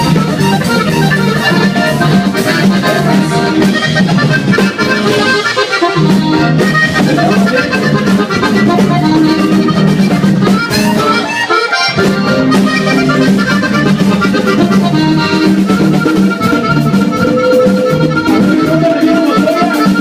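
Latin American accordion music with a steady bass line, dropping out briefly twice, about six and twelve seconds in.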